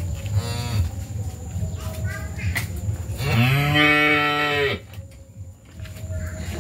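A cow moos once, a single long call of about a second and a half, starting about three seconds in.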